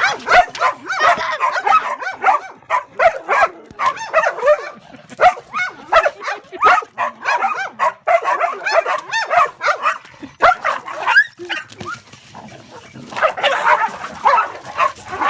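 A guard dog barking fast and without let-up, with a short lull about twelve seconds in before the barking starts again. This is her guard reaction to someone faking an attack on her owner.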